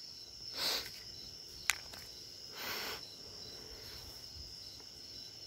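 Crickets trilling steadily in a high, even tone. Two short soft puffs of noise and a single sharp click are heard over it.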